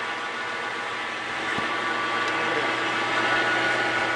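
YUWE L1440 manual lathe's spindle and headstock gearing running at 460 rpm without cutting, just after start-up: a steady machine whine of several tones over a hum, growing a little louder about two seconds in.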